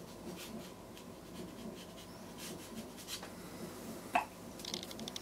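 A paintbrush dabbing and stroking on watercolour paper: faint short brush strokes, with one sharp click about four seconds in.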